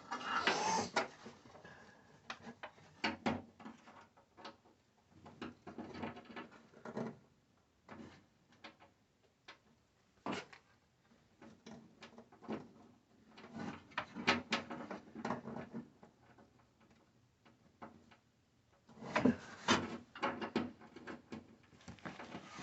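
Irregular clicks, knocks and rubbing of a hand and the antenna cable being worked through a tight opening in the Jeep's body, in scattered bursts with short pauses between.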